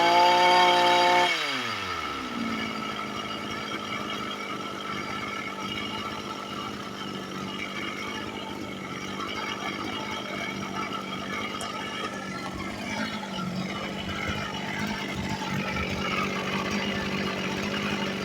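Zenoah TR2611 brush-cutter two-stroke engine running at high revs, then dropping sharply about a second in as the throttle is let off, and settling into a steady idle. The seller says this engine runs but makes a strange abnormal noise.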